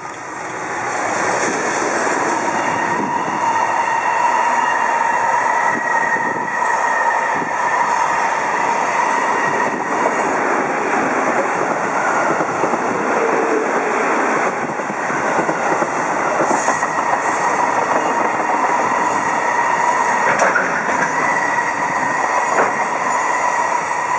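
JR Freight EF210 electric locomotive and a long string of container flat wagons rolling past at speed, growing loud about a second in as the locomotive arrives, then a steady rush of wheels on rail with a faint ringing tone and the odd click of rail joints. Partway through, a 373-series electric multiple unit passes on the nearer track.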